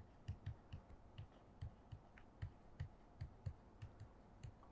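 Faint taps and clicks of a pen writing by hand: about a dozen light ticks at uneven intervals as the strokes of the letters are made.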